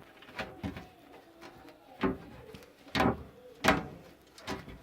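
About six short knocks and clicks, scattered irregularly and a second or so apart, from things being handled.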